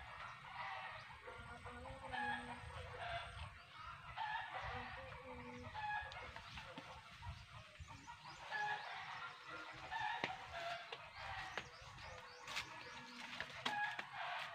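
Faint chickens clucking and a rooster crowing, with calls coming every couple of seconds, and a few light clicks near the end.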